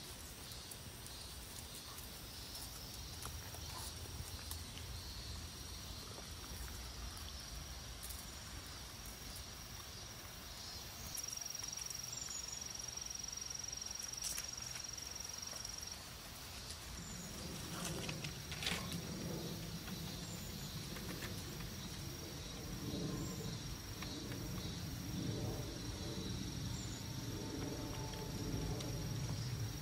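Steady high-pitched insect drone, louder for several seconds in the middle, over a low outdoor rumble, with a few faint high chirps.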